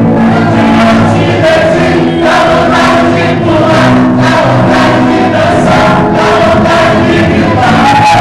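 A congregation singing a lively worship song together over music with a steady beat.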